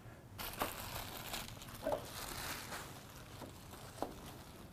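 Clear plastic wrapping crinkling and rustling as it is pulled off and handled, with a few light knocks.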